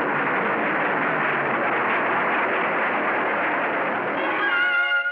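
Cartoon rocket-ship engine sound effect: a steady rushing hiss. Near the end a held pitched tone comes in over it.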